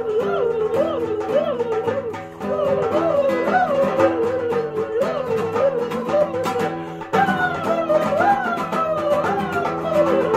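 Background music: a melody that bends up and down over held lower notes and a regular beat, with a brief dip about two seconds in.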